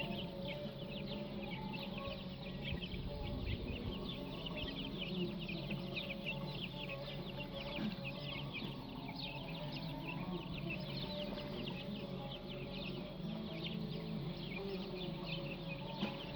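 Chickens clucking, with many quick high-pitched chirps throughout.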